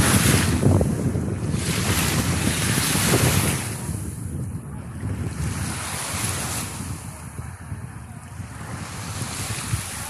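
Wind buffeting the microphone over the wash of small sea waves on a sandy beach, louder for the first few seconds and then easing.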